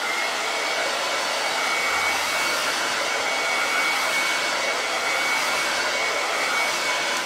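Handheld hair dryer switched on and blowing steadily over a craft stencil, with a thin high whine above the rush of air, then cut off.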